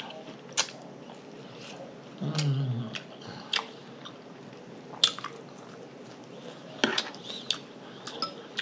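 A person chewing food close to the microphone, with scattered wet mouth clicks and lip smacks. There is a short hummed vocal sound about two and a half seconds in.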